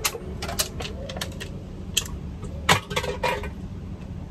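Aluminium drink can being crushed and squeezed in a hand, giving a run of sharp, irregular crinkling clicks.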